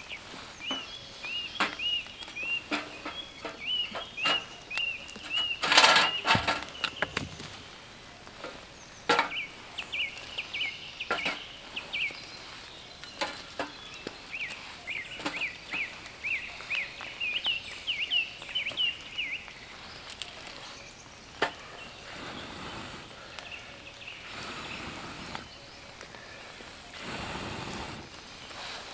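Dry sticks snapping and clattering as they are broken and fed into a small metal twig stove, with one loud crack about six seconds in. Over it a bird repeats short high chirps about twice a second, stopping about two-thirds of the way through.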